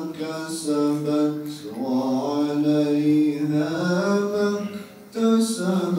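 A man reciting the Qur'an in Arabic in a melodic chant through a microphone, holding long notes that glide slowly up and down in pitch. The voice breaks off briefly about five seconds in, then resumes.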